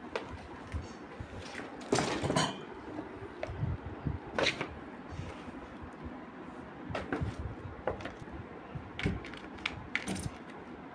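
Kittens playing with a cardboard box: scattered light knocks, scuffs and scrapes of paws and bodies against the cardboard and the box shifting on the table, with a longer scrape about two seconds in.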